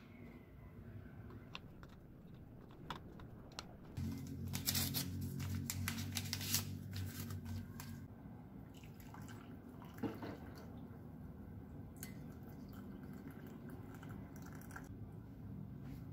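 Small kitchen handling sounds: a tea bag's wrapper being torn open and crinkled over a glass mug, with light clicks of dishware on a cloth-covered counter. A low steady hum runs for about four seconds in the middle, under the loudest crinkling.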